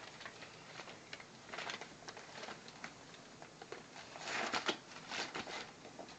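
Wrapping paper crinkling and rustling in short irregular bursts as a pug tugs and tears at a wrapped gift with her mouth, the loudest crinkling about four to five seconds in.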